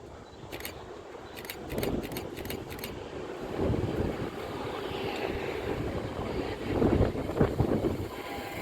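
A train running on the track with no horn sounding, its rumble swelling unevenly and growing louder, with a quick run of faint sharp clicks in the first three seconds.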